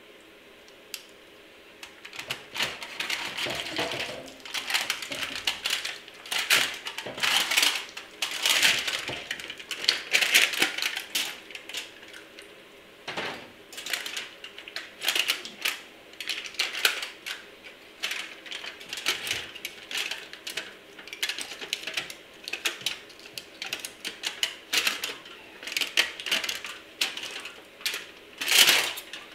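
Crumpled heat-treating foil crinkling and tearing in irregular bursts of crackling as it is peeled off a quenched steel block, starting about two seconds in.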